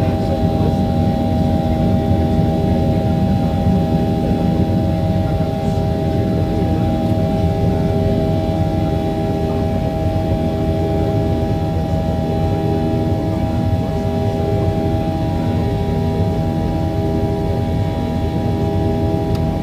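Boeing 737-800's CFM56 turbofan engines at high thrust, heard from inside the cabin as a steady loud rumble with a buzzsaw of several steady tones over it.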